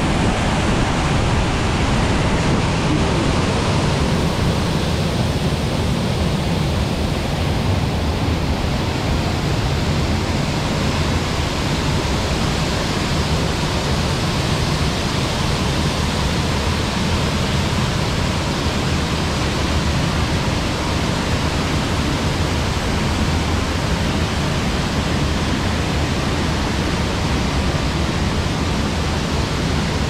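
Steady rush of water from a river rapids ride's large artificial waterfall and the flowing channel around the raft.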